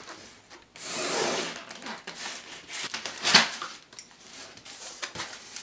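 Cardboard shipping box being opened and handled by hand, with cardboard and packing tape rustling and scraping as an inner box is slid out. One sharp noise about three and a half seconds in is the loudest sound.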